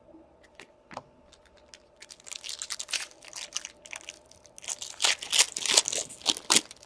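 A hockey card pack being torn open by hand, its wrapper crinkling and crackling. A few light clicks come first, then about two seconds in the crinkling turns dense and keeps going in uneven bursts until just before the end.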